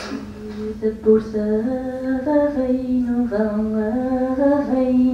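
Film soundtrack music: a woman's voice singing a slow melody of long held notes that step up and down, played back over a screening room's speakers.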